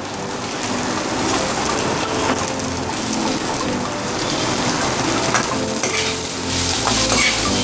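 Chicken pieces with onion sizzling and frying in a wok on a gas flame while fresh coriander is tossed in and stirred with a metal spoon, which scrapes and taps against the pan a few times.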